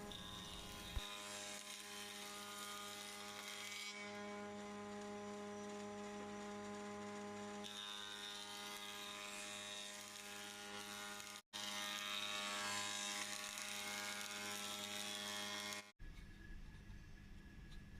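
A Metabo combination jointer-planer and thicknesser running: a steady motor hum with a hiss from the spinning cutter block. It cuts out briefly about eleven seconds in and stops about two seconds before the end.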